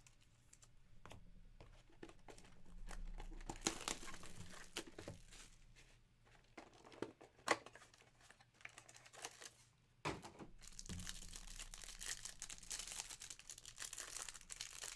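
Trading-card pack wrapper crinkling and tearing as it is opened by hand. The sound is faint and comes in two stretches, with a quieter gap in the middle broken by a few sharp clicks.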